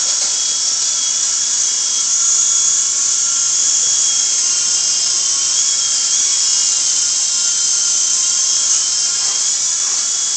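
Small toy remote-control helicopter hovering, its electric motors and rotors making a steady high-pitched whine over a hiss, with the pitch wavering slightly now and then.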